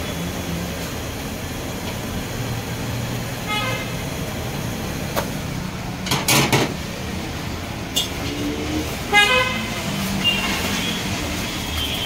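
Busy street ambience with steady traffic rumble, two short vehicle horn toots about three and a half and nine seconds in, and a brief clatter near the middle.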